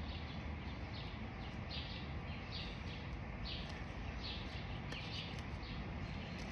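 A bird chirping over and over, one short call roughly every second, over a steady low background rumble.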